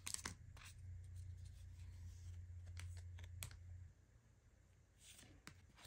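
Faint handling of trading cards and their opened foil booster pack: a few light clicks and soft rustles over a low hum that drops out about four seconds in.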